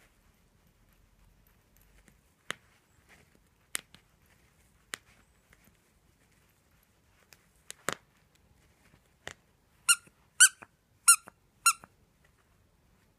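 A plush dog toy's squeaker squeezed four times in quick succession, each a short, loud squeak. Before it come a few scattered light clicks.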